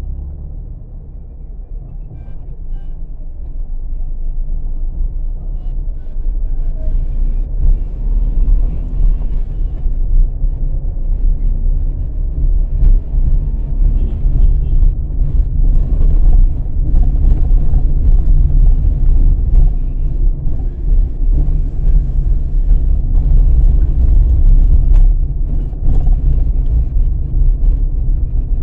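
Low rumble of road and wind noise from a moving vehicle in city traffic. It grows louder a few seconds in as the vehicle pulls away from stopped traffic and gathers speed.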